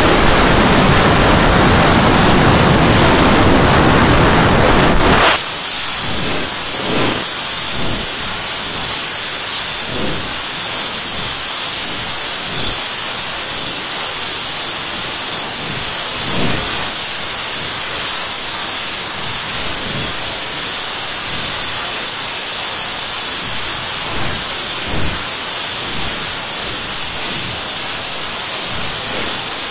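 Digitally distorted effects audio: a loud, harsh rushing noise that cuts off suddenly about five seconds in, followed by a steady high hiss with faint soft pulses.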